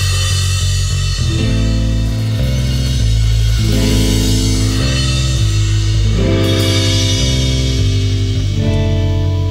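Rock song playing: guitar and bass chords that change every second or so over drums, with no singing.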